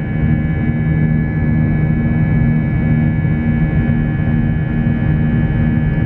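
Airbus A320 jet engines heard from inside the cabin beside the wing while the plane climbs out after takeoff: a steady, loud rush of noise with several steady droning tones.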